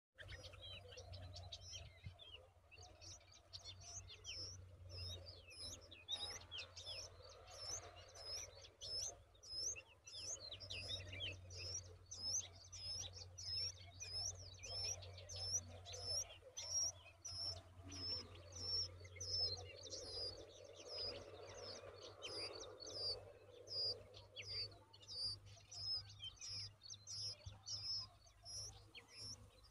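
Yellow-vented bulbul nestlings begging: a rapid, steady string of thin, high chirps, two to three a second, while they gape for food. A faint low hum runs underneath.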